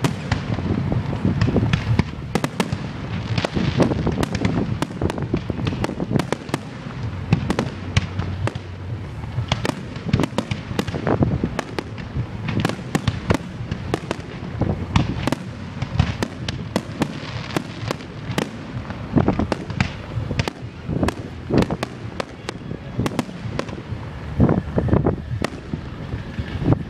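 Fireworks display: many bangs and cracks going off one after another at an uneven pace, over a low continuous rumble.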